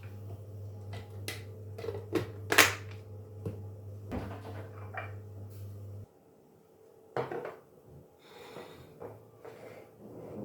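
Kitchen handling sounds: a series of knocks and clicks as things are moved and set down, the sharpest about two and a half seconds in. Under them runs a low steady hum that cuts off suddenly about six seconds in.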